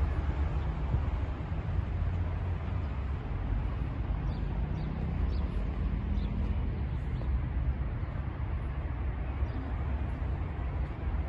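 Steady outdoor ambience: a constant low rumble with an even hiss over it, and a few faint, short high chirps in the middle.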